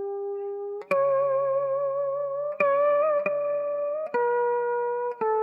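Amplified scalloped-fret (phím lõm) guitar playing a slow đờn ca tài tử introduction. It plays single plucked notes, about five new ones, each held and bent with a wide, wavering vibrato.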